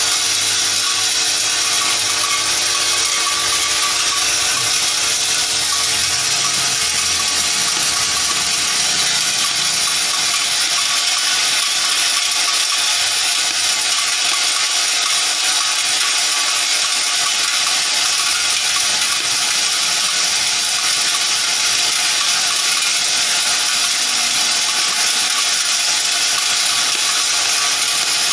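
Vibratory bowl feeder running, with a mass of small steel bike chain pins chattering against the steel bowl and along its spiral track. It is a continuous, even metallic rattle with a steady hum underneath.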